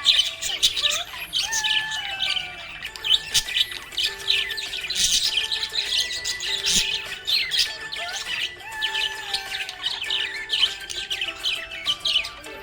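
Budgerigars chirping and warbling continuously in a stream of quick, overlapping high chirps.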